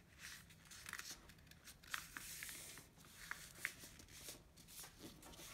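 Sheet of A4 paper being folded and creased by hand: faint scattered rustles and crisp ticks, with a short rubbing hiss about two seconds in.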